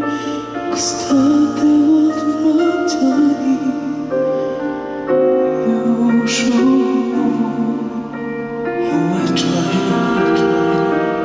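A male singer sings a slow ballad into a microphone, the voice wavering and held on long notes over sustained instrumental chords.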